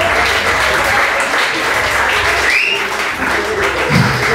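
Audience applauding, with a single short rising whoop about two and a half seconds in.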